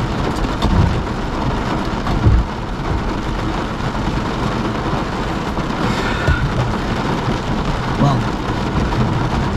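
Heavy rain beating on a car's roof and windshield, heard from inside the car, with low thunder rumbling under it and a sudden low thump about two seconds in.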